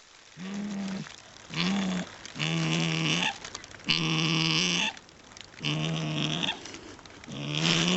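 A dog grumbling and groaning in a run of six drawn-out, low moans, each under a second long, in protest at being woken and told to get up.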